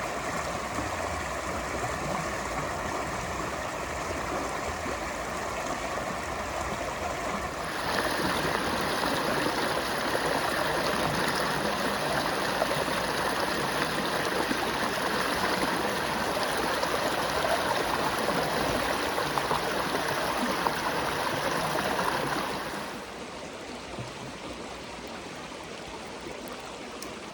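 A stream running, a steady rushing of water. About eight seconds in it turns abruptly louder and brighter, then drops back to a quieter rush after about twenty-two seconds.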